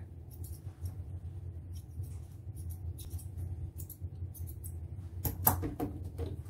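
Straight grooming shears snipping a Pomeranian puppy's coat in short, irregular snips, with a few louder clicks about five seconds in, over a steady low hum.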